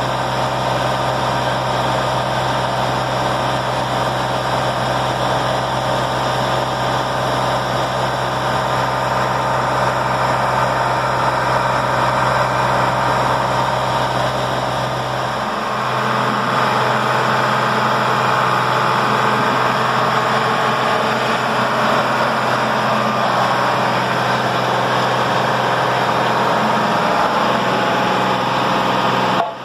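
Heavy engine of well-drilling site machinery running steadily. About halfway through, the deepest part of the hum drops away and a rougher midrange noise takes over.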